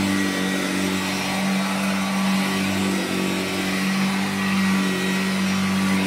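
Hoover Junior 119 upright bag vacuum cleaner running steadily with a constant motor hum as it is pushed back and forth over carpet.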